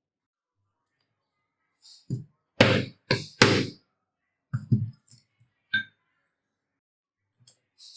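A string of about eight irregular knocks and thuds, each short and dying away quickly, starting about two seconds in after a quiet start.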